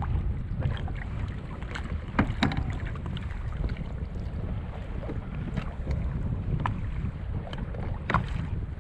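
Wind rumbling on the microphone over water lapping at a fishing kayak, with scattered sharp clicks, the loudest about two seconds in.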